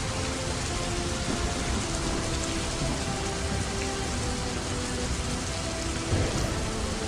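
Background soundtrack: soft, sustained notes of calm ambient music over a steady rain sound.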